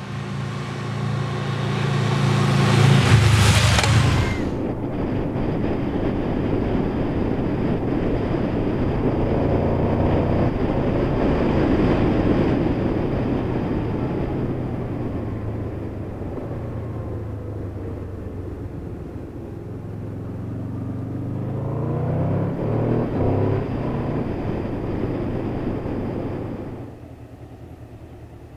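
Honda VFR800's V4 engine as the motorcycle accelerates up to and past, loudest about three to four seconds in. The sound then changes to riding on the bike itself: the engine runs steadily under the ride noise, revs up again a little past twenty seconds in, and cuts off suddenly near the end.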